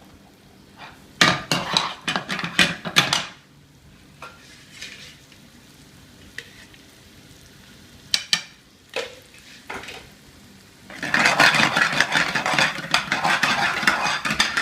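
A metal spoon knocking and scraping in a pan as chopped onion is stirred while it fries in butter and oil. There are sharp clatters in the first few seconds and again around eight seconds in, then steady, busy stirring and scraping from about eleven seconds on.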